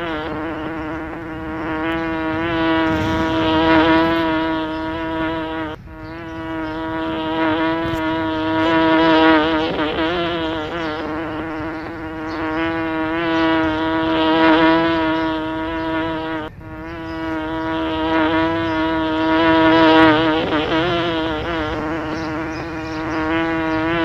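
A bee buzzing: one steady, pitched wing buzz that wavers slightly in pitch and swells and fades in loudness, with brief breaks about six and seventeen seconds in.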